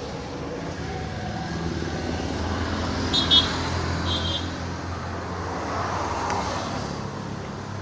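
Steady low road-traffic rumble, with two short high-pitched tones about three and four seconds in.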